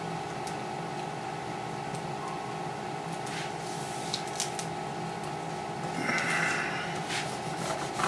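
A steady mechanical hum runs throughout, with faint scattered ticks and a brief rustle about six seconds in. These come from Scotch tape being pressed onto and lifted off a sheet of laser-cut aluminium flush rivets.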